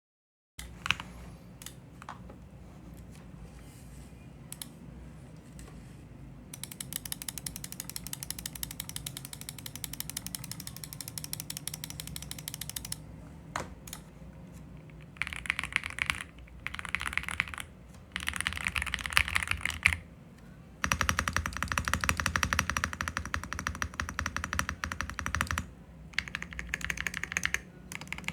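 Royal Kludge R65 mechanical keyboard with Chartreuse switches being typed on. A few separate keystrokes come first, then fast continuous typing from about six seconds in. After that come several louder bursts of typing with short pauses between them.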